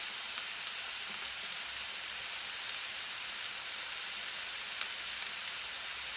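Pork, squash and eggplant sizzling steadily in a wok: a continuous frying hiss with a few small pops.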